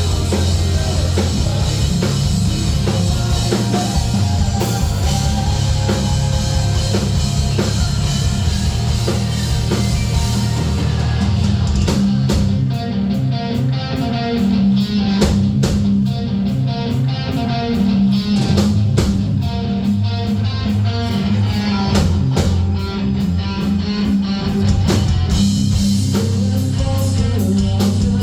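A rock band playing live at full volume: guitars over bass and drum kit in a heavy metal song. About ten seconds in, the cymbal wash drops away and the drum hits stand out sharply with the riff.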